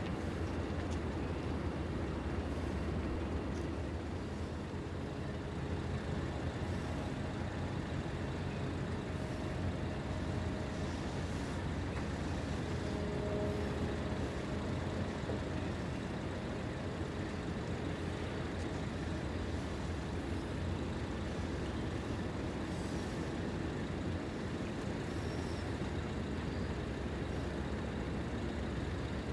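Steady low rumble of heavy engines, unbroken throughout, with a faint hum rising briefly in the middle.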